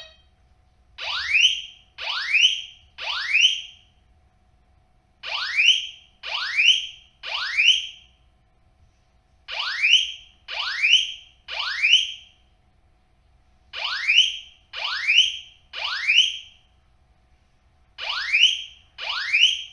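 Residential heat-type fire alarm sounding in its operation test, set off by holding down its alarm-stop button: groups of three short rising-pitch beeps, each group repeating about every four seconds.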